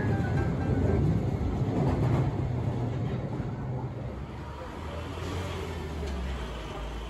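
London Underground Bakerloo line train running through the platform: a low rumble, loudest in the first couple of seconds, then easing off.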